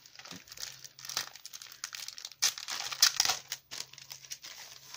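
Clear plastic sleeve of a packet of clear stamps crinkling as it is handled and turned over, in irregular crackles that are loudest a little past halfway.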